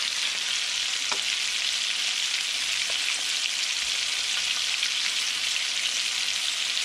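Spice-coated red snapper fillets frying in hot butter in a pan over medium-high heat, giving a steady sizzle and crackle.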